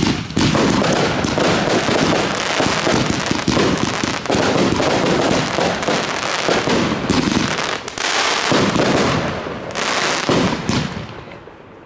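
Blackboxx Pyro-Spektakel Level 1 and Süßes Gift firework batteries firing: a loud, rapid volley of shots and bursting stars that dies away near the end.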